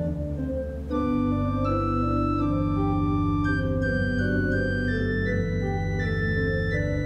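Church organ playing sustained chords over a deep pedal bass, with a melody moving note by note above; a fuller chord with a stronger bass comes in about a second in.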